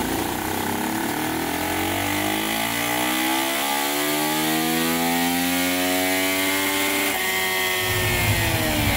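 Honda CRF450R's single-cylinder four-stroke engine making a full-throttle dyno pull: its pitch climbs steadily for about seven seconds. Then the throttle is shut and the revs fall away near the end.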